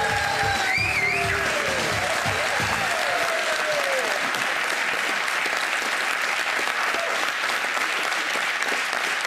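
Studio audience applauding steadily, with entrance music under the first three seconds that then fades away.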